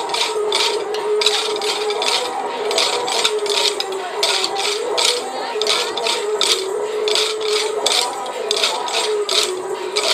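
Many wooden kolattam sticks clacking together in rhythm as a stick-dance troupe strikes them, about three clacks a second. Music with a wavering melody plays underneath.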